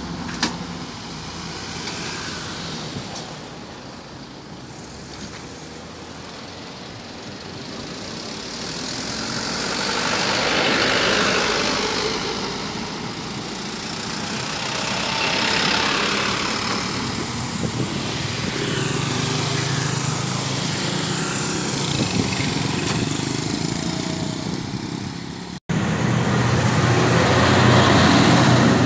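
Diesel engine of a Nissan Diesel self-loader truck carrying an excavator, running as the truck moves off, with road noise swelling twice. After a short break near the end, the truck goes by close with a louder, low engine hum.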